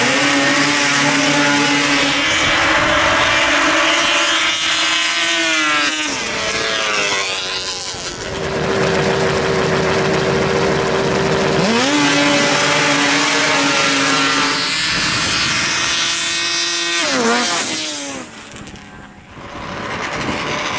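Racing snowmobiles launching and running at full throttle: the engine note jumps up sharply at the start, holds high and steady, then drops in pitch and fades as the sled passes and runs away. This happens twice, about 12 s apart, with another sled holding a steady high note between the two runs.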